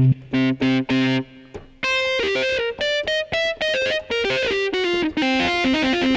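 Electric guitar voice of a Yamaha MX49 keyboard synthesizer played from the keys: a few short repeated chord stabs, then a quick run of single notes going up and down.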